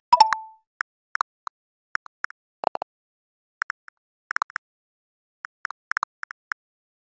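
Phone on-screen keyboard key-press clicks: an irregular run of short taps as a message is typed. Right at the start, a louder click with a brief ringing tone, the message-send sound.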